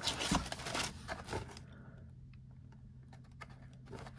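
Handling noise from a cardboard paint box and cellophane-wrapped paint tubes: a second or so of rustling and clicking, then a few scattered light taps.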